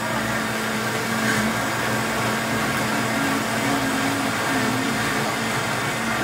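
Countertop blender running steadily, blending a yogurt drink.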